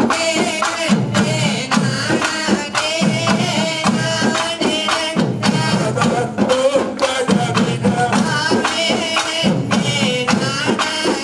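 Tamil folk music for a valli kummi dance: a male singer's wavering sung line over a steady, quick drum rhythm.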